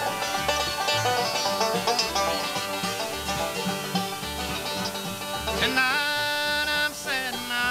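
Acoustic bluegrass band playing live, instrumental: banjo rolls up front over mandolin, acoustic guitar and upright bass keeping a steady beat. There are sliding notes near the end.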